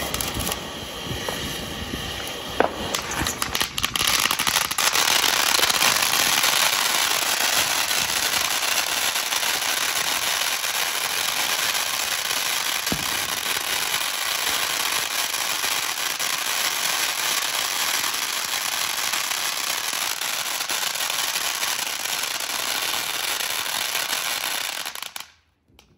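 Consumer XL firework fountain spraying: scattered crackles at first, then a steady loud hiss that grows stronger about four or five seconds in. It cuts off suddenly just before the end.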